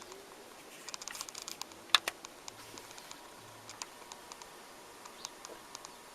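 Onkyo PL-25F turntable's mechanism clicking during a power-on test: a quick run of light clicks, one sharp click about two seconds in, then scattered single ticks.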